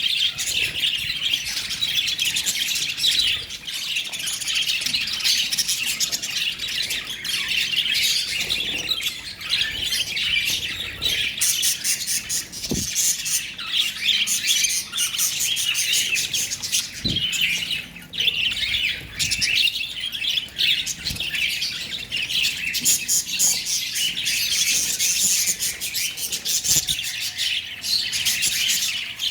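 Lovebirds chattering: a continuous stream of rapid, high-pitched chirps and squawks.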